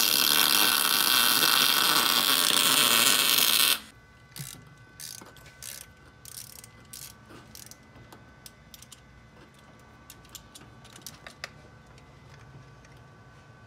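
A loud steady hiss that cuts off suddenly a little under four seconds in. It is followed by a ratchet wrench clicking in short, uneven runs as a fitting on a Nissan V6 engine is worked.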